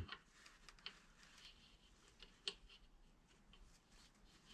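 Near silence, with faint clicks and scrapes of a gloved hand threading a small air fitting into the exhaust brake's air cylinder; one sharper click about two and a half seconds in.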